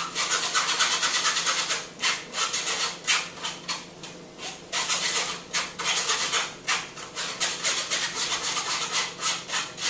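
A metal spoon scraping round inside a fine mesh sieve, pressing raspberries through to make a puree. It is a quick, rhythmic rasping of about three or four strokes a second, with a short pause about four seconds in.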